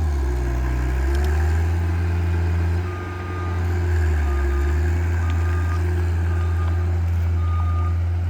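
John Deere skid steer's diesel engine running steadily under load, easing briefly a couple of times. From about three seconds in, its reversing alarm beeps about once a second as it backs up.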